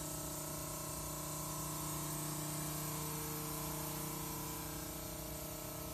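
Wireless sanitizer spray gun running and blowing out a fine mist: a steady hiss over a steady motor hum.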